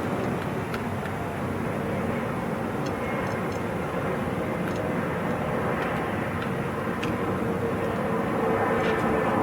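Steady outdoor background rumble with a faint steady hum and a few faint clicks.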